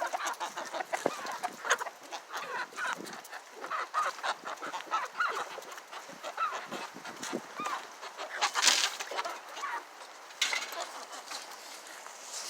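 A flock of farm poultry calling at feeding time: many short overlapping calls, with a couple of louder rustling bursts in the second half.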